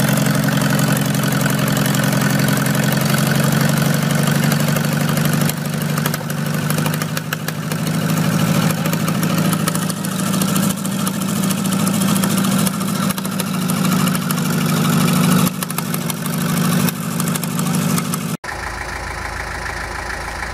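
An old tractor engine running hard at high throttle, its pitch wavering as the rear wheels spin in snow. About two seconds before the end there is a sudden cut to a Porsche Diesel Master tractor's engine idling steadily with a deep, low hum.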